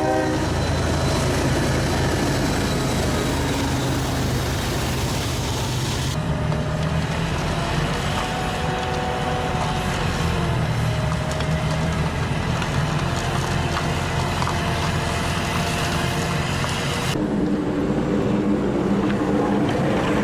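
Heavy trucks running along a snowy road, engines humming steadily under road and tyre noise. The sound changes abruptly twice, about 6 and 17 seconds in.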